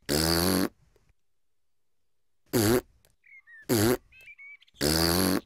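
Cartoon children blowing raspberries with their tongues out, four buzzing blows of under a second each, the pitch dipping and rising within the shorter ones.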